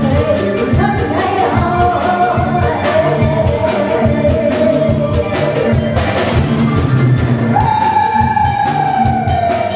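Live Isan Thai folk-pop band music: a drum kit keeps a steady beat under a female singer's long held notes, one of which slides down in pitch near the end.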